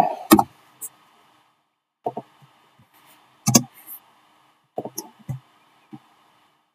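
A few short, scattered clicks and knocks from a computer keyboard and mouse at a desk, the loudest about three and a half seconds in, with faint microphone hiss between them.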